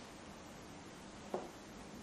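Quiet room tone with one short, soft tap about a second and a half in.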